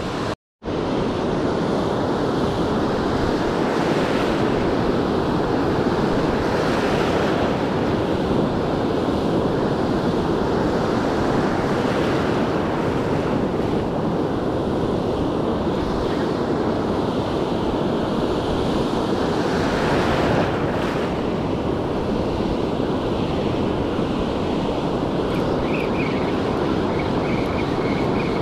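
Ocean surf breaking and washing up a sandy beach: a steady wash that swells every few seconds, with wind buffeting the microphone. The sound cuts out for a moment just after the start.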